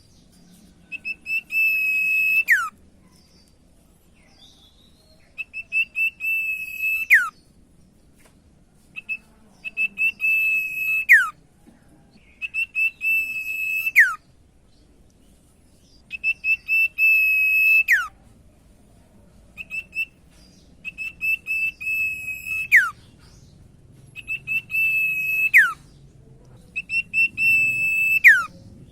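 Common iora (cipoh, called sirtu) calling: about eight long whistled calls. Each is a high held note that breaks into quick stutters and ends in a sharp downward slur, with a gap of a second or two between calls.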